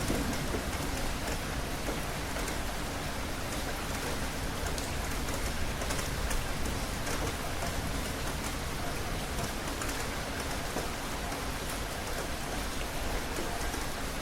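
Steady rain falling, a constant hiss with many individual drops ticking on a surface.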